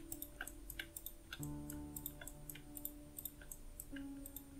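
Faint background music: held chords that change twice, with a steady ticking beat of about four ticks a second.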